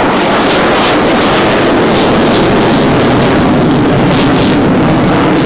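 Jet noise from the twin General Electric F414 turbofans of an F/A-18F Super Hornet flying a display: loud and steady throughout.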